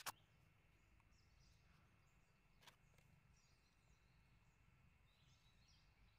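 Near silence: faint outdoor ambience with distant birds chirping now and then, and a soft click about two and a half seconds in.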